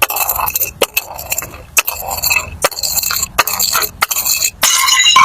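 Pieces of glass clinking and scraping together in quick succession, many sharp clinks with brief bright ringing tones.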